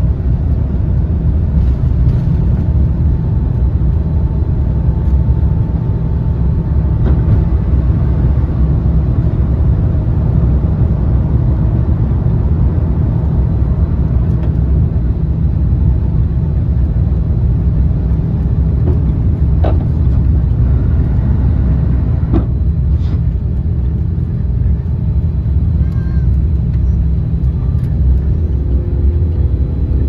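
Cabin noise inside an Airbus A350-900 during takeoff and climb-out: a loud, steady low rumble from its Rolls-Royce Trent XWB engines and the airflow, with a couple of faint clicks a little past the middle.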